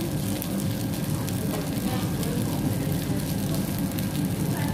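Food sizzling and crackling on a tabletop hotpot-BBQ grill: a steady patter of fine crackles over a constant low background noise.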